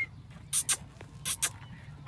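Pet parrot giving two quick pairs of short, high chirps.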